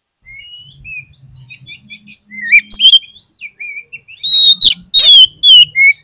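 Oriental magpie-robin singing a run of varied whistled phrases. They start soft and get louder, and the loudest, sharpest notes come in the last two seconds.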